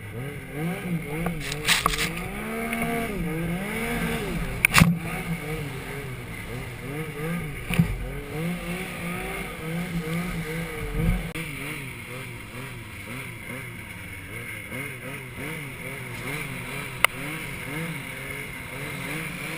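Yamaha Nytro snowmobile's four-stroke three-cylinder engine revving up and down again and again as the sled is ridden through deep powder, with a few short sharp knocks along the way.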